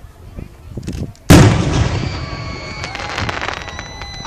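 A single aerial firework shell bursts with a loud bang about a second in, followed by a long crackling tail that slowly fades.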